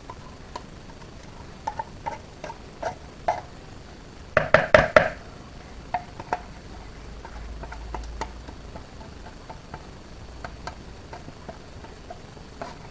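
Scattered light clinks and taps as a tin of sweetened condensed milk is emptied into a bowl, with a quick run of louder clinks about four and a half seconds in.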